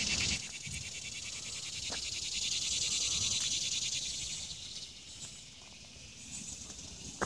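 Insect chorus: a steady, high, fast-pulsing buzz that eases a little after about five seconds.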